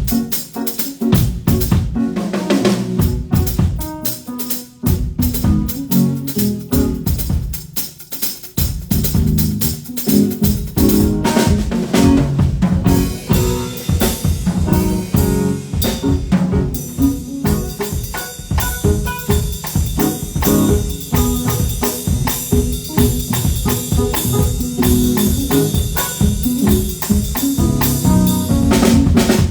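Drum kit played live in a sound check: kick, snare and cymbals in a steady beat, with pitched instrument notes underneath. The playing is sparse at first and gets busier, with more cymbal, from about a third of the way in.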